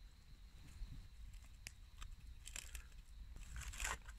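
Aluminium foil crinkling as it is pulled open from around a baked potato, in short rustling bursts that grow denser and louder toward the end.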